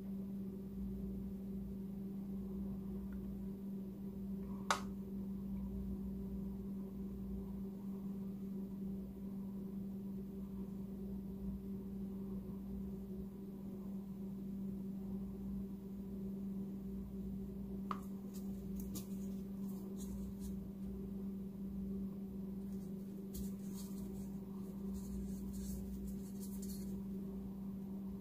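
A steady low hum runs throughout, with a sharp click about five seconds in. Faint clicks and rustles are scattered through the second half.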